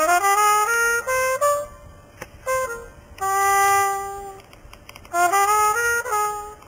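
Solo jazz brass horn playing riffs. It plays a phrase of notes stepping upward, then a short note, then a long held note about three seconds in, then another phrase whose notes scoop up into pitch near the end.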